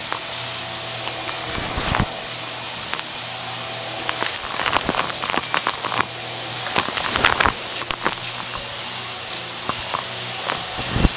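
Close-miked upright bagless vacuum cleaner running with a steady motor hum while it sucks up small debris off the carpet, which crackles and crunches through the head, in thicker bursts about four to five seconds in and again around seven seconds.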